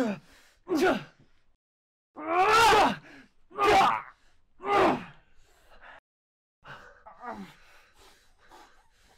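A badly beaten man groaning and gasping in pain: five loud, drawn-out groans that fall in pitch over the first five seconds, then weaker, breathier ones.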